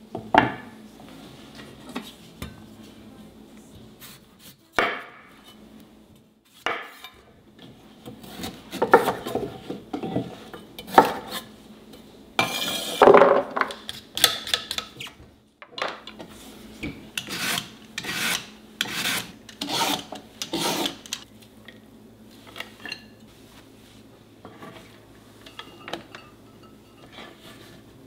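Kitchen knife scraping and peeling a daikon radish on a wooden cutting board, with knocks of the blade on the board. The strokes come unevenly at first, then as an even run of about two a second in the middle, fading to occasional small sounds near the end.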